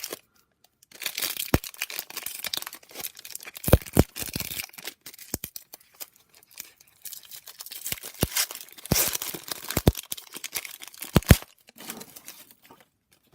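A trading-card pack wrapper being torn open and crinkled by hand, in two long spells of tearing and rustling with sharp clicks and taps between them.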